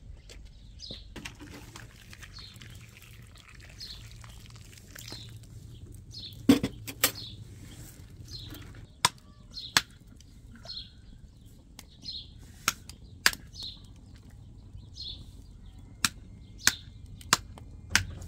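A bird repeating a short, high chirp about once a second. About a third of the way in, sharp clicks begin, mostly in quick pairs, and they are the loudest sounds.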